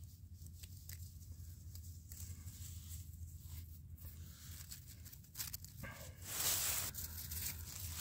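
Dry bird's-nest fibres and dead grass rustling and crackling under the fingers as a smouldering chaga coal is worked into the nest, in small scattered crackles with a louder, longer rustle about six seconds in.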